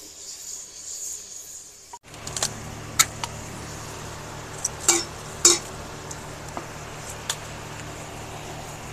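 A wooden spoon stirs curry in a clay pot, with a hissing sizzle from the frying pot. About two seconds in, the sound changes abruptly to a steady low hum with several sharp clinks of metal utensils, a few of them ringing briefly.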